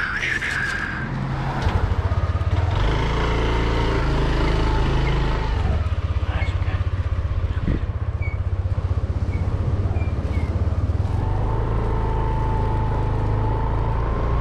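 Motor scooter engine pulling away under the rider, its pitch rising in steps over the first few seconds, then running steadily at cruising speed.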